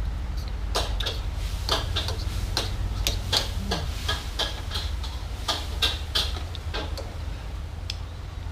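Eating sounds from a bowl of noodle soup: an irregular string of short, sharp clicks, about one or two a second, over a steady low background hum.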